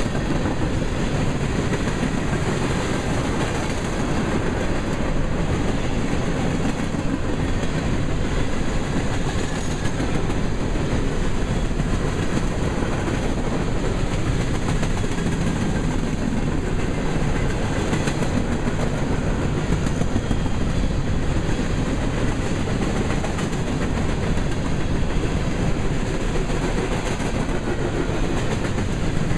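Freight train's grain hopper cars rolling past, a steady rumble of steel wheels on the rail with the clickety-clack of wheels over rail joints.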